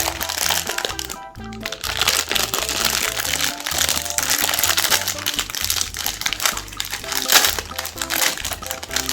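Meat grinder crunching Magnum ice cream bars, their chocolate coating cracking and crackling as it is ground, over background music.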